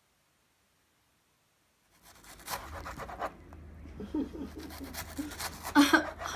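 Dead silence for about two seconds, then a cut in to a low room hum with scattered clicks and scraping rustles. Soft voices start to come in about four seconds in.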